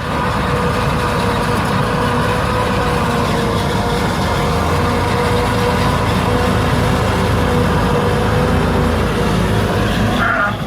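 A heavy vehicle engine running steadily, with a constant tone riding over a deep rumble.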